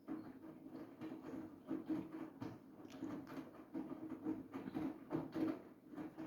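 Siemens iQ700 washing machine running a wash: the drum turning and the laundry tumbling in it, with irregular swishing about every half second over a steady low hum.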